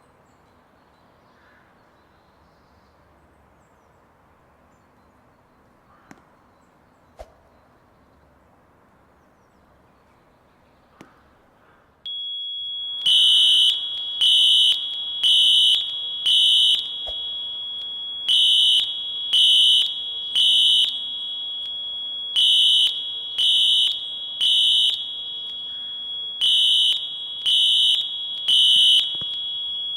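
Wheelock fire alarm horns and a smoke detector sounding under test. After a stretch of near-quiet room tone with a few faint clicks, a steady high-pitched alarm tone comes on about twelve seconds in. A second later a loud, piercing horn starts blasting about once a second in the temporal-three evacuation pattern: groups of three blasts with a short pause between, over the continuous tone.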